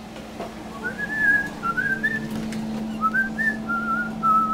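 A person whistling a short, wavering tune in a run of little phrases, starting about a second in, over a steady low hum.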